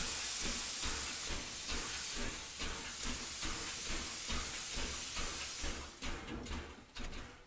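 Steam locomotive hissing steadily as it lets off steam, with an uneven low rumble underneath, fading away about six seconds in.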